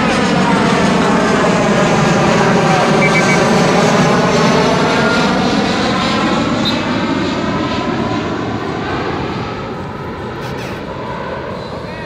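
Airplane flying overhead: a loud, steady engine rush that swells to its loudest about four seconds in, then slowly fades as the aircraft moves away.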